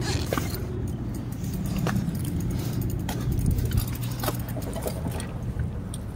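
Bicycle rolling along an asphalt street: a steady low rumble from the tyres and air moving past, with scattered light clicks and rattles.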